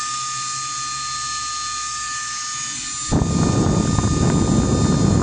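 Small 12 V DC motor air blower running, with a steady whine and hiss. About three seconds in, a loud rush of air noise sets in and carries on.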